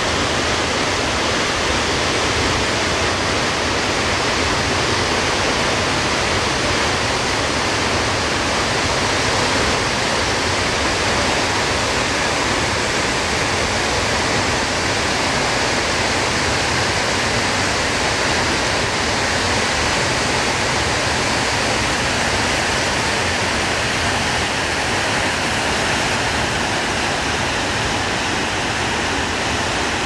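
Mountain waterfall and stream rushing steadily, a loud, even wash of water noise with no break or change.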